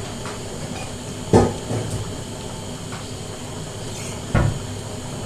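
Two dull knocks of kitchen items being handled, about three seconds apart, over a steady low hiss.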